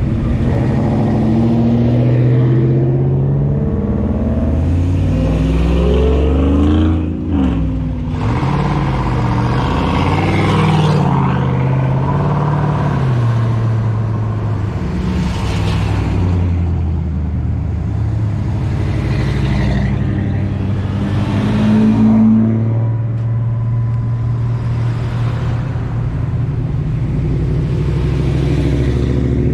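A line of classic Chevrolet C10 pickup trucks driving slowly past one after another, engines rumbling, their revs rising and falling as each truck rolls by. One truck is louder about three quarters of the way through.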